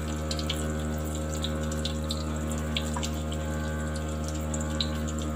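Yeast doughnuts deep-frying in a pan of hot oil: a steady sizzle scattered with small crackles and pops, over a steady low hum.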